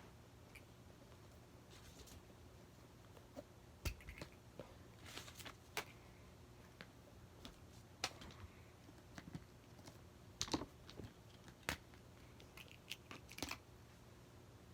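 Scattered faint clicks and taps of small plastic fidget toys being handled and set down, coming irregularly every second or two.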